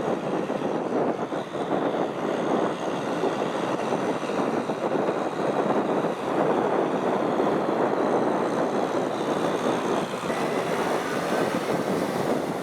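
Diesel tractor engine running steadily while plowing a muddy field.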